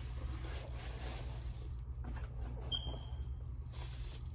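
Steady low hum, with faint rustling of plastic packaging being handled and a brief high-pitched tone about three seconds in.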